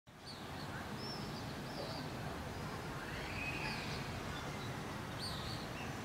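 Outdoor ambience: a steady low background hum, fading in at the start, with faint scattered bird chirps and one longer arching call about three seconds in.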